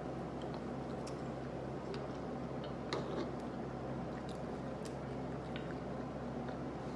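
Eating sounds: chewing with scattered small clicks, over a steady low background hum.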